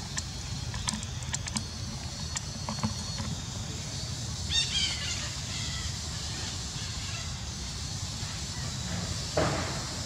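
Outdoor ambience with a steady low rumble and a few light clicks; about halfway through a brief high-pitched chirping call, and near the end a short rustle.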